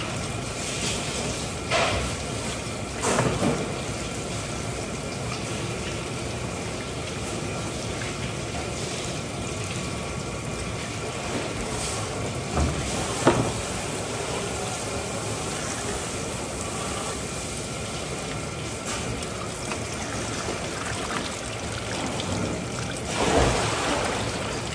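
Water running and trickling steadily, over background music, with a few short knocks.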